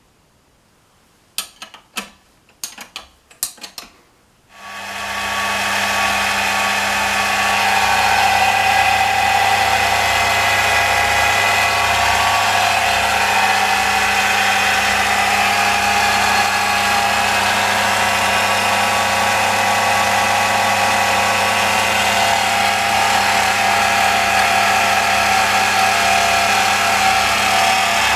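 A few clicks and knocks, then about four and a half seconds in the electric motor of a Hartridge rotary valve grinder starts and runs steadily: a low hum under a high, even whine.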